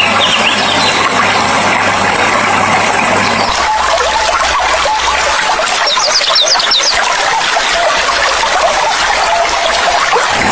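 Steady rushing of flowing water with birds chirping over it, a quick run of high chirps about six seconds in. The water sound changes abruptly about three and a half seconds in.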